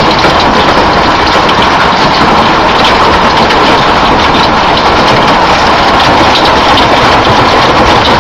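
Heavy thunderstorm rain pouring down: a loud, steady hiss dotted with countless small ticks of drops striking hard surfaces.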